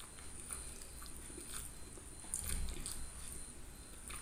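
Close-miked chewing of a mouthful of fish and rice: soft wet smacks and small clicks, with a louder cluster a little over two seconds in.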